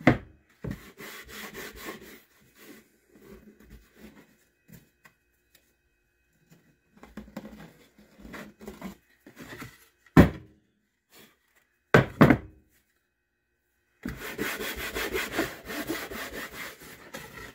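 Sandpaper rubbed by hand over a round wooden stool seat, in short irregular strokes with pauses and a denser stretch of steady sanding near the end. A few loud wooden knocks come about ten and twelve seconds in.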